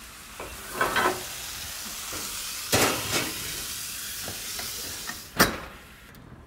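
Cornish hen halves sizzling in a hot cast-iron skillet, with knocks of metal on metal as the skillet goes into the oven. A sharp bang about five seconds in, the oven door shutting, after which the sizzling fades.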